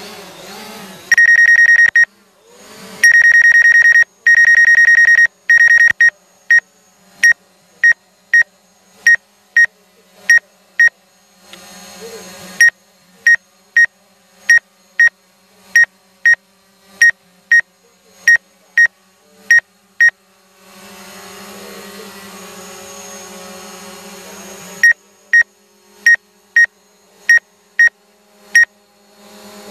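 Loud electronic warning beeps from a drone's remote controller: two long beeps in the first few seconds, then short beeps at nearly two a second, broken by two pauses. A faint steady hum fills the pauses.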